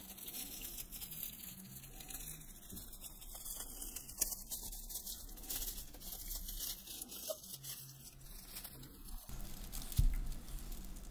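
Dry bast fibres rustling and crackling faintly as they are twisted and knotted by hand, with one sharper thump about ten seconds in.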